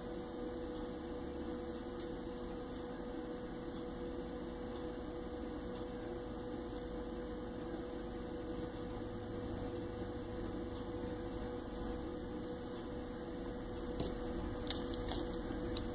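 Steady low electrical hum with one thin steady tone through it, and a few faint light clicks near the end.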